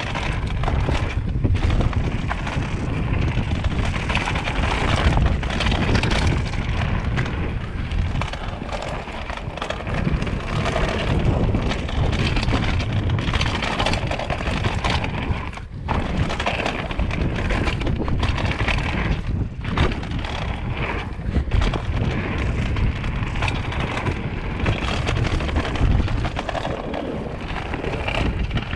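Mountain bike being ridden down a dirt singletrack: a steady rush of wind on the microphone and low tyre rumble, with frequent clicks and clatters from the bike over the rough trail.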